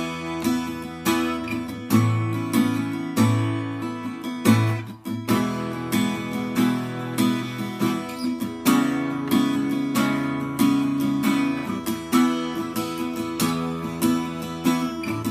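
Acoustic guitar with new D'Addario EXP19 coated strings in standard tuning, strummed chords with a sharp attack about once or twice a second and the chords changing every few strums.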